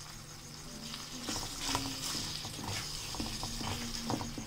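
Wooden spoon stirring chicken keema and peas in a small metal karahi, with scrapes and clicks against the pan starting about a second in, over a light sizzle of the mince frying in ghee.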